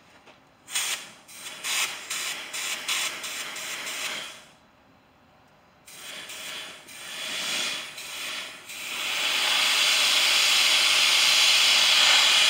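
Compressed air hissing through an A/C line from an air nozzle, purging the old flush out of the system. It comes first in short, broken spurts as the air is feathered, pauses, then turns into a steady, loud blast about nine seconds in.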